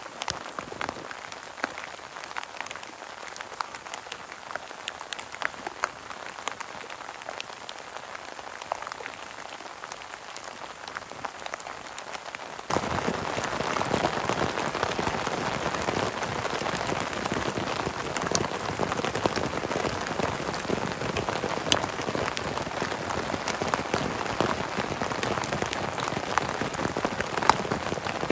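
Steady rain falling, with scattered drops ticking sharply. About halfway through it jumps louder and closer: rain drumming on a plastic tarp shelter.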